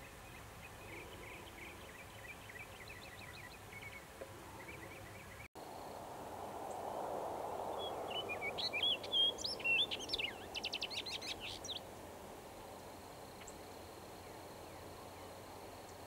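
Songbirds calling: faint quick chirps in the first few seconds, then a louder song of varied sweeping high notes ending in a fast run of short notes, about eight to eleven seconds in, over a soft rushing background.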